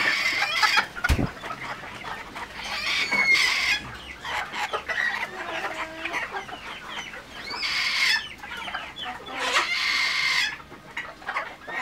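Chickens clucking and calling, with several louder calls about a second long. A single knock comes about a second in.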